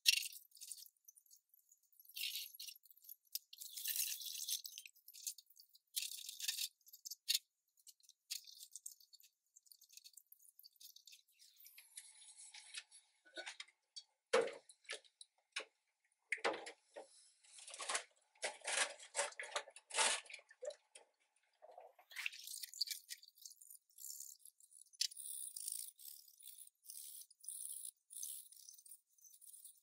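Dishes being washed by hand in a stainless steel sink: sponge and scouring-pad scrubbing and swishing in soapy water, irregular and scratchy. Through the middle come a run of sharper clinks and knocks of dishes against the sink.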